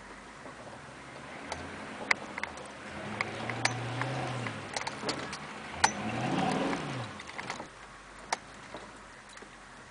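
Engine of a diesel GMC Suburban revving up and easing off twice as it crawls over a rough, muddy trail, heard from inside the cab. Sharp knocks and rattles come from the truck bouncing, and the second rev near the middle is the loudest.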